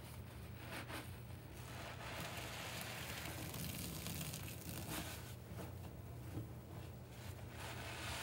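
Soapy kitchen sponges squeezed over a sink full of dish-soap suds: wet squelching and foam crackling. A stream of soapy water pours into the sink from about two seconds in until about five seconds in, making a louder, steady splashing hiss.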